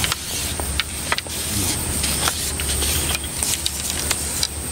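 Outdoor pond-side ambience: insects droning in one steady high tone over a steady low rumble, with scattered short clicks.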